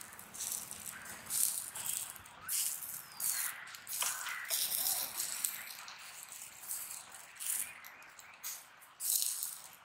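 Oil basted onto spit-roasting whole chickens dripping onto hot charcoal, sizzling and crackling in irregular hissing bursts.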